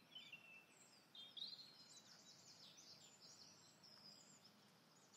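Faint small-bird twittering: quick high chirps and short gliding notes, busiest from about a second in.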